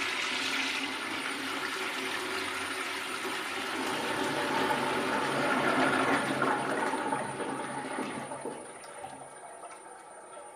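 Toilet flushing: water rushes into the bowl, grows louder to about six seconds in, then falls away around eight and a half seconds in to a faint hiss.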